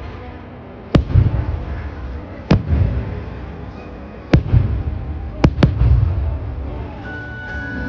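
Aerial fireworks bursting: five sharp bangs, the last two close together, each followed by a low rumble.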